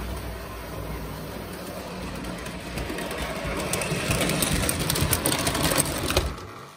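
Prewar Lionel O gauge electric steam locomotive running on tinplate track, its motor whirring and wheels clicking. It grows louder as it approaches, then fades out near the end.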